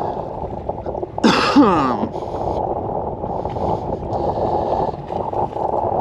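A boat at sea gives a steady rushing noise of engine and water against the hull. About a second in there is a short, loud cry that falls in pitch.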